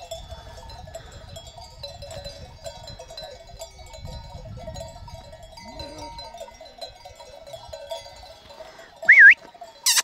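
Many sheep bells ringing steadily across a grazing flock, with faint sheep bleats now and then. About nine seconds in comes a brief, loud, high wavering note.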